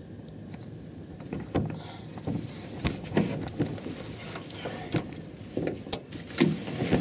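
Handling sounds of ultralight spinning tackle in a small boat: a spinning reel being wound on the retrieve, with scattered light knocks and clicks.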